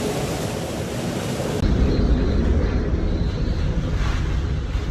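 Hurricane-force wind rushing and buffeting the microphone, a dense noise with no pitch. About one and a half seconds in, the sound changes abruptly to a deeper, louder rumble of wind on the microphone.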